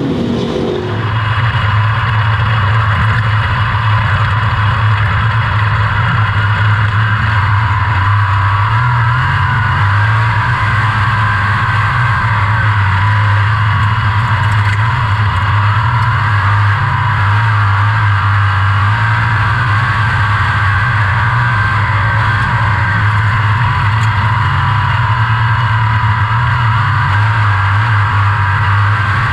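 360 sprint car's V8 engine running on track, heard from the onboard camera in the cockpit. The sound is loud and nearly steady, with only slight rises and falls in revs.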